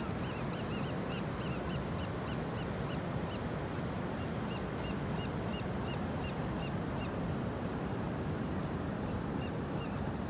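Steady rush of surf and wind, with birds calling over it in runs of short, high notes several a second: through the first three seconds, again around the middle, and a few near the end.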